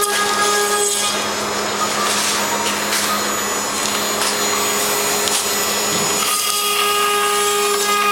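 CNC machine spindle running with a steady whine while milling an HDPE plastic fender pad. From about a second in, the whine gives way to a rougher, noisier cutting sound; about six seconds in, the steady whine comes back.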